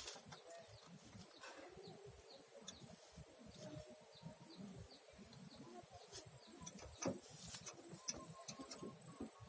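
Zebra dove (perkutut) calling faintly, with scattered small clicks.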